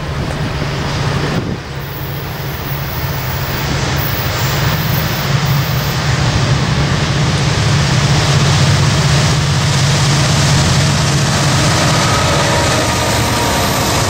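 Norfolk Southern freight train approaching and passing, led by an EMD SD60E and two GE C40-9 diesel-electric locomotives. A steady deep engine rumble grows louder over the first half as the locomotives near, then stays loud as they go by.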